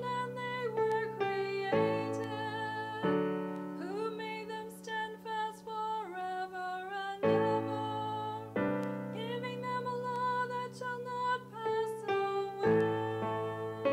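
Keyboard music: sustained chords that change every second or two, with a melody line wavering over them.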